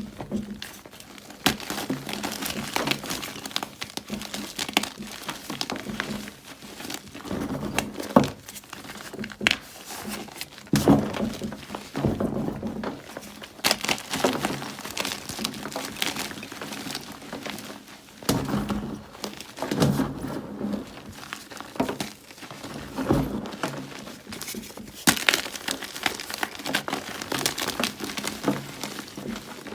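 Ader gym chalk blocks being bitten and chewed close to the microphone: a continuous run of irregular dry crunches and snaps.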